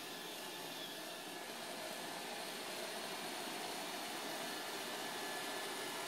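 iRobot Roomba 535 robot vacuum running on carpet with a steady whirring hum of its brushes and suction fan. It grows slightly louder as it drives closer. The machine is running normally, with its bumper sensor repaired.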